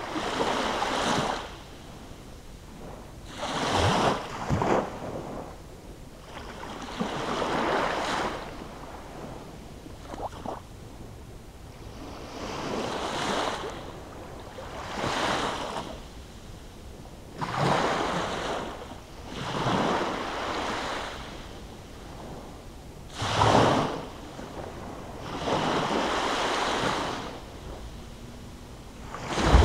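Small waves from a calm sea breaking and washing up a sandy beach, one rush of surf every two to three seconds, about ten in all.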